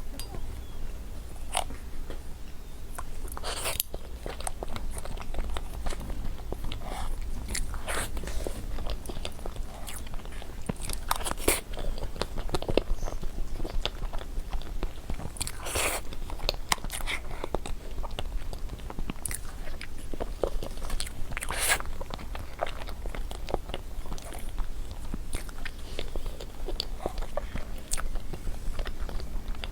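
Close-miked eating of a chocolate mousse cake: irregular wet bites, chewing and mouth smacks over a steady low hum.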